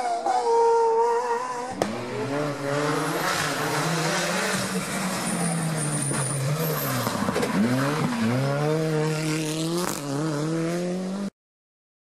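Abarth 124 Rally car's engine running hard past the roadside. About two-thirds of the way through, the revs fall steeply and then climb again as it pulls away. The sound cuts off abruptly near the end.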